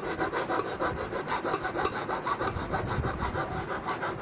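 Quick, even rubbing strokes, several a second, as the glued foam surround of a loudspeaker is rubbed down by hand around the frame's rim to press the adhesive into a firm bond.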